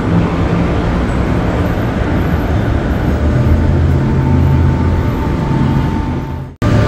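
Busy city street traffic with the low engine hum of a heavy vehicle, strongest around the middle. The sound drops out abruptly for a split second near the end.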